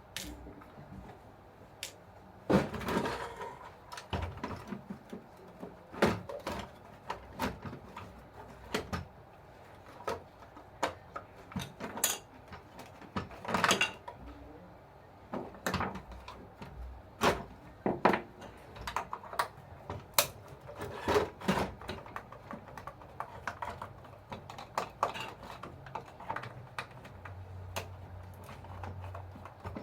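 Irregular clicks and knocks of small plastic and metal parts being handled while an RC toy bulldozer is taken apart for repair.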